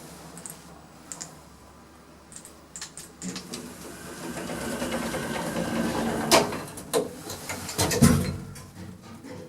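Passenger lift machinery: a few small clicks, then a steady mechanical hum that builds from about three seconds in, with two loud clunks near the end as the lift's mechanism or doors work.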